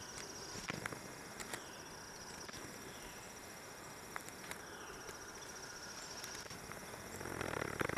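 Steady high-pitched insect trilling, with a few faint clicks. Near the end, a rapid pulsing sound close by starts up and grows louder.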